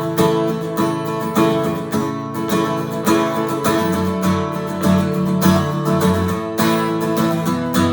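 Acoustic guitar strummed in a steady rhythm: the instrumental introduction to a children's worship song, before the singing comes in.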